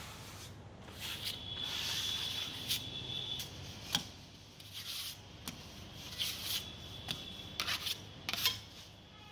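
Metal plastering scraper scraping and scooping wet screeding paste in uneven strokes, with a few sharp clicks of the blade.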